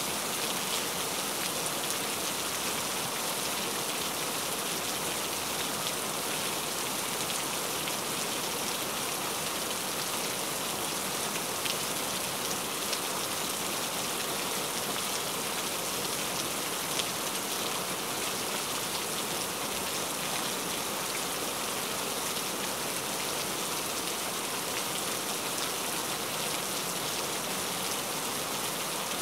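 Steady rain falling: an even hiss of drops with occasional faint, distinct drop ticks, unchanging throughout.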